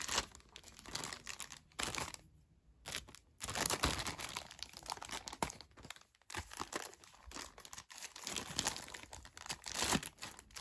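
Clear plastic packaging bag crinkling and rustling in the hands in irregular bursts as an accessory is unwrapped, with a short pause about two seconds in and a few sharp clicks.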